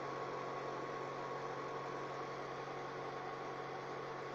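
Steady background hum and hiss with a faint constant high tone: unchanging room tone, no other sound standing out.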